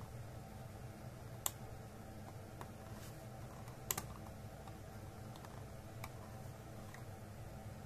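Small sharp clicks and taps of a screwdriver and the plastic casing of a power strip being handled while the rubber feet covering its screws are pried off: a louder click about a second and a half in, a double click near four seconds, and lighter ticks between, over a faint low steady hum.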